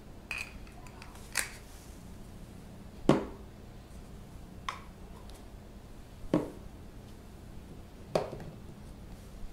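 Camera lenses handled on a wooden tabletop: a lens set down and its plastic cap fitted on, making about six light knocks and clicks spread out, the loudest about three seconds in.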